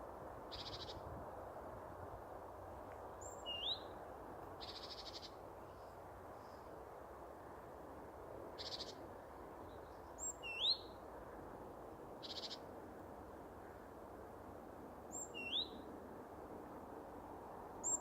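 A bird's whistled call, a brief high note followed by a quick rising whistle, repeated about every five seconds. Between the calls a second voice gives a short, fast buzzing trill every few seconds, over a steady faint background hiss.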